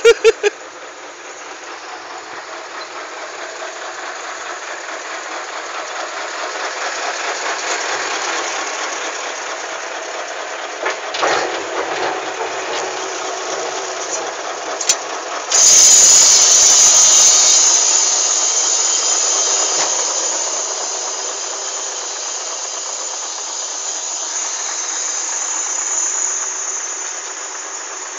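Heavy diesel engine running steadily at a worksite, with a few short knocks. About halfway through, a sudden loud hiss starts and fades away over several seconds.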